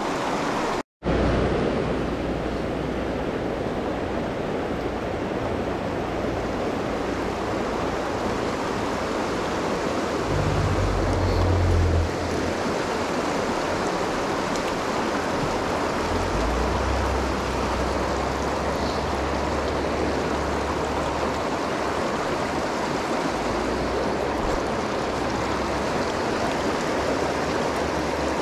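River rapids rushing over boulders, a steady, even wash of water noise. It cuts out for an instant about a second in, and a low rumble swells under it at times.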